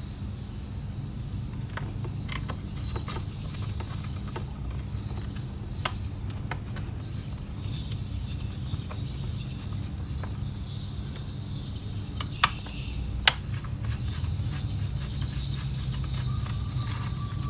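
Small clicks and taps of a screwdriver and screws on a laptop's plastic bottom case as screws are driven in, with two sharp clicks about twelve seconds in, over a steady low hum.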